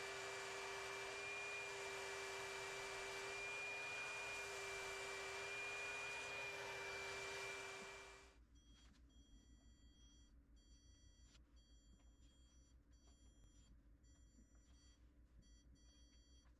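HVLP turbine spray system running steadily, a whine over a hiss. About eight seconds in it stops abruptly, and a stud finder beeps in short and longer high tones as it is slid along a wall.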